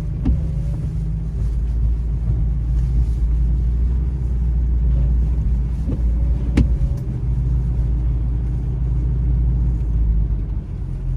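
Ford F-250 pickup running at low speed while pulling a loaded dump trailer, a steady low engine rumble. A single sharp click about six and a half seconds in.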